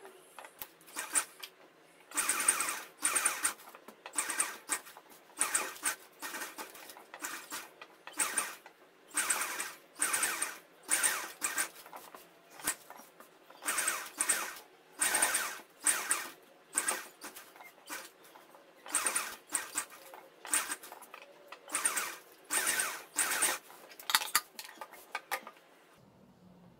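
Sewing machine stitching lace trim onto a kurti neckline in short runs of under a second, about one a second, stopping and starting between runs; it stops shortly before the end.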